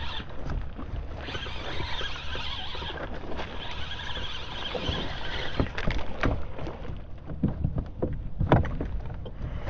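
A fishing kayak on the water with wind on the microphone and water against the hull. From about halfway in come a run of sharp knocks and taps.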